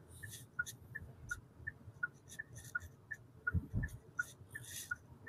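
Turn-signal indicator in the cabin of a 2023 Hyundai Elantra, ticking faintly and evenly at between two and three ticks a second.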